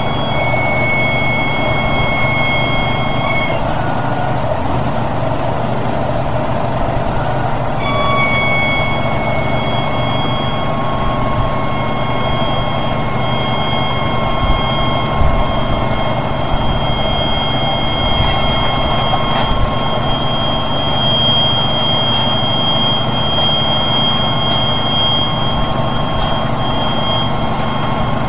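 Heavy truck engine running steadily, with a high whine over it that drops out for a few seconds near the start and then comes back.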